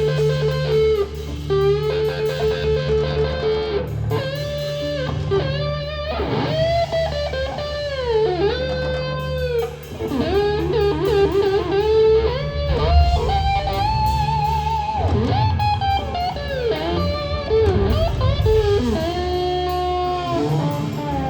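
Live blues-rock band playing, led by an electric guitar solo of sustained notes that bend and waver in pitch, over bass and drums.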